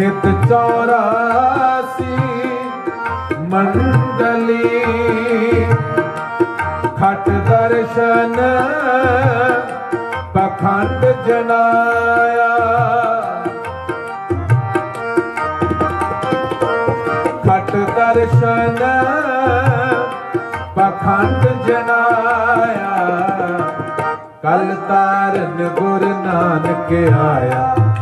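Shabad kirtan: harmonium melody over a steady tabla beat, with a singing voice. The music breaks off briefly about three quarters of the way through.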